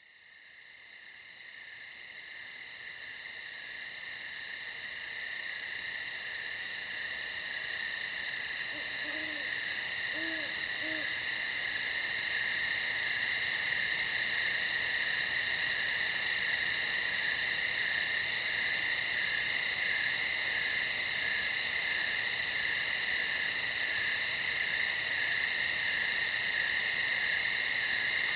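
Night insects in the woods, a dense, steady, rapidly pulsing high-pitched chorus that fades in over the first ten seconds or so. A few faint low hoots sound about nine to eleven seconds in.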